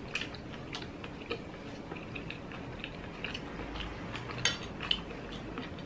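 Quiet chewing of grilled street-food meat pulled off skewers, with scattered faint clicks and a couple of sharper clicks about four and a half seconds in.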